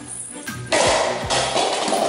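Background music with a steady drum beat. About two-thirds of a second in, a loud crash-like rush of noise joins it and continues.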